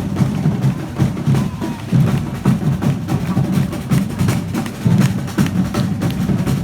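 Catalan festival drums (tabals) beating a steady rhythm.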